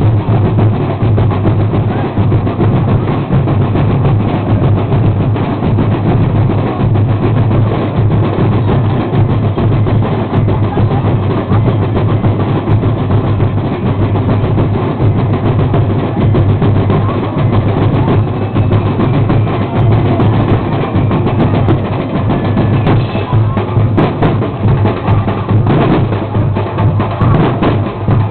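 Festival street-dance drum band playing a loud, continuous percussion rhythm: bass drums and snare-type drums beating without a break, the drumbeat that Sinulog dancers perform to.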